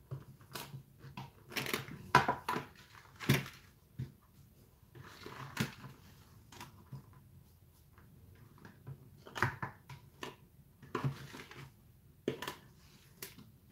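A plastic dough scraper scraping and knocking inside a large clear plastic mixing bowl as dough is worked out onto the worktop: irregular knocks and short scrapes, the sharpest about two and three seconds in.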